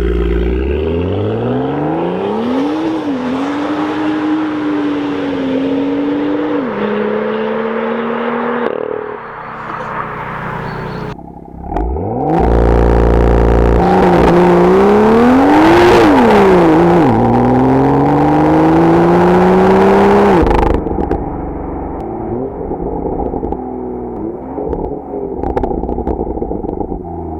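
BMW M2's 3.0-litre turbocharged straight-six, with a modified, larger exhaust, accelerating hard through the gears. Its pitch climbs and drops back at each upshift over several passes. The loudest run starts about twelve seconds in with a hard launch and cuts off suddenly about twenty seconds in, leaving quieter engine and road noise.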